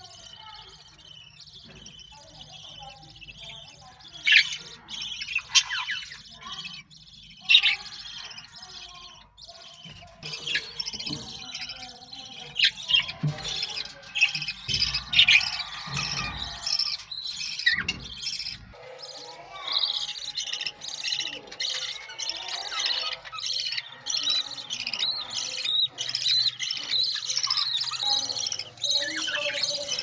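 Budgerigars chirping and chattering: a few sharp, loud chirps in the first several seconds, then denser, steadier high chatter from about ten seconds in.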